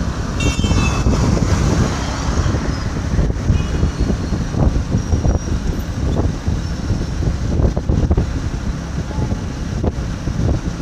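Wind rushing over the microphone with engine and road noise while riding a motorcycle along a busy road with traffic around, steady throughout. A short high-pitched tone sounds about half a second in.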